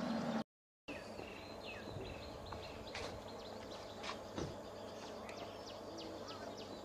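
Outdoor ambience of small birds chirping, with many short, high calls that slide downward, repeating over a steady background hiss and a few faint knocks. The sound drops out completely for a moment just under a second in.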